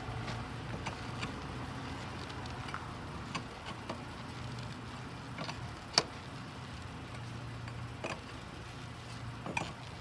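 Four-way lug wrench clicking and clinking on the lug nuts as they are tightened by hand on a car wheel. The ticks are scattered, and the sharpest comes about six seconds in, over a steady low hum.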